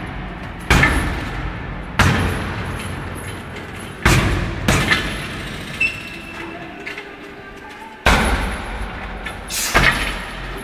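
Roundhouse kicks and punches thudding into a heavy punching bag: six hard, unevenly spaced impacts, two of them close together, each ringing on in the echo of a large gym hall.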